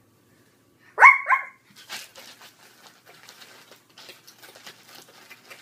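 A child imitating a dog: two quick barks about a second in, then a long run of rapid mouth-smacking, chomping noises, mimicking a dog eating.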